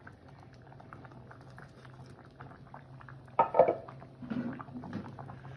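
Coconut-milk fish stew bubbling at a simmer in a pot, a faint steady crackle of small pops over a low hum. About three and a half seconds in, pineapple chunks tipped in from a wooden board make a short, louder splash.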